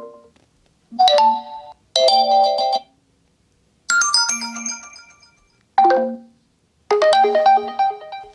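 Oppo Find X3 Pro ringtones and alert tones playing back to back: a string of short melodic jingles, five in all plus the tail of one before, each lasting about a second with brief silences between.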